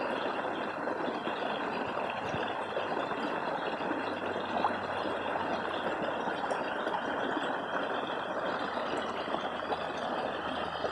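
Steady rushing noise with no rhythm or tone, holding the same level throughout.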